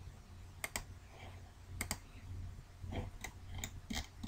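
Computer mouse clicking about eight times, the clicks mostly in close pairs, over a low steady hum.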